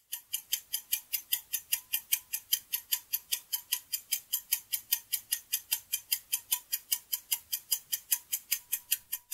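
Ticking sound effect of a quiz countdown timer: quick, sharp, high clock ticks, about five a second, counting down the ten seconds allowed for an answer.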